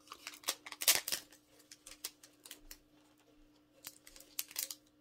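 Photo cards and a clear plastic holder handled and set down on a table: a few sharp clicks and rustles, the loudest about a second in, over a faint steady hum.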